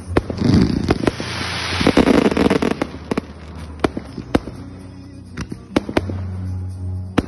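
Fireworks display: sharp bangs of aerial shells bursting at irregular intervals, with a dense rushing hiss from about half a second in until nearly three seconds.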